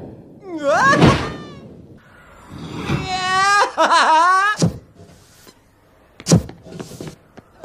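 A man's long, wavering yells, twice, then a sharp knock and, a little past six seconds in, a louder short thud, followed by a few light clicks.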